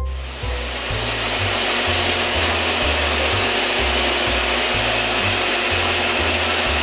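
Bosch table saw running steadily with a plywood sheet on its sliding table, the saw noise cutting in and out abruptly, over background music with a steady bass beat.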